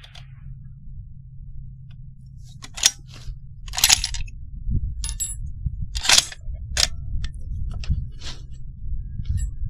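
Several sharp metallic clinks and clicks, the loudest about three, four and six seconds in, over a steady low rumble of wind on the microphone.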